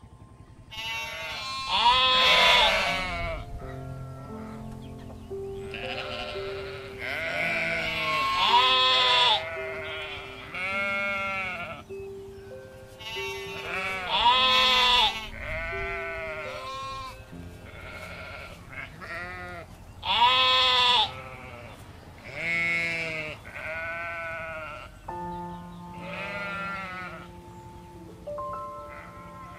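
A mammal's repeated calls, each about a second long with a wavering pitch, a dozen or so spaced every two to three seconds, over soft background music with held notes.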